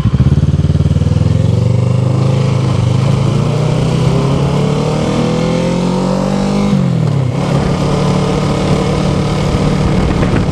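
2007 Kawasaki Ninja 650R's parallel-twin engine pulling under throttle, its pitch climbing steadily for about six and a half seconds. It then falls away over about half a second and runs on at a steady pitch.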